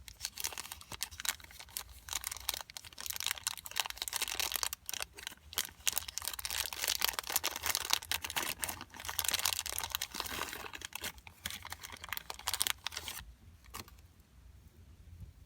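Small plastic toy packaging crinkled and torn open by hand: a dense run of crackles and crinkles that stops about 13 seconds in.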